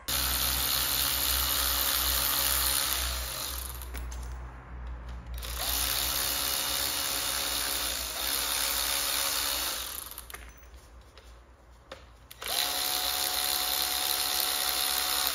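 Cordless power driver running in three spells of a few seconds each, its motor whining up to speed at the start of each spell, as it spins out the bolts of a differential's rear cover.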